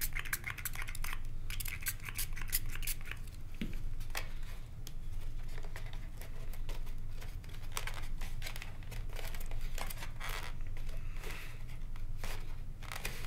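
Foam model-aircraft parts being handled: an EPO foam wing fitted and pressed onto a foam RC jet fuselage, giving scattered crinkling scrapes and light taps, over a steady low hum.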